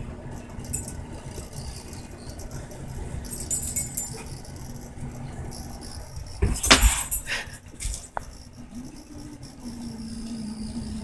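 A dog's collar tags jingling as the dog noses at a cat through a door gap, with one short, loud burst of clattering noise a little past halfway.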